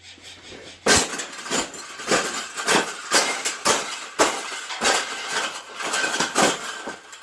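Metal wire bird cage being bent and folded flat by hand: irregular metallic clanks and rattles of the wire bars, starting about a second in and easing off near the end.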